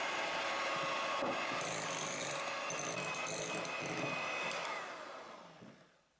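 Electric hand mixer running, its twin beaters whipping egg whites and powdered sugar into stiff meringue in a glass bowl. The steady whir fades out near the end.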